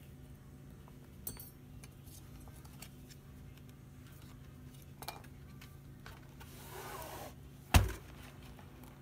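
Light clicks of small tools and a laptop LCD panel being handled, a brief scraping rustle, then one sharp knock near the end as the LCD panel is lifted out and laid face down onto the laptop's base.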